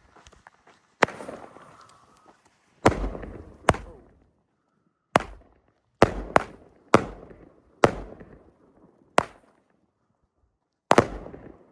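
Consumer firework cake firing its shots: about ten sharp bangs at uneven intervals, a few close together, each dying away over a second or so in an echoing tail.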